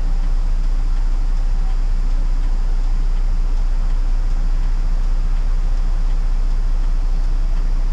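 City bus's engine idling steadily while the bus stands stopped, a constant low rumble heard from inside the cabin.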